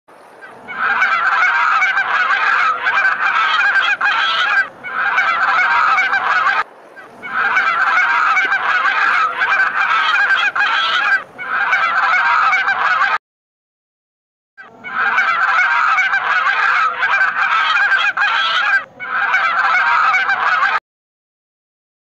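A flock of geese honking in a dense, continuous clamour. It comes in stretches of a few seconds that start and stop abruptly, with two short complete silences: one a little past halfway and one near the end.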